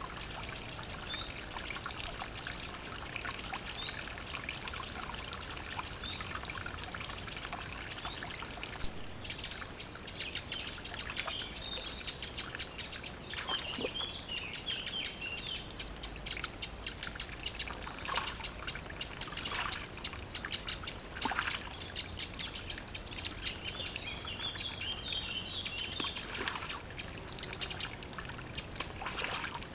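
A small woodland stream trickling while songbirds call, a short note repeating every couple of seconds at first. From about nine seconds in come busier bird song and a few short splashes.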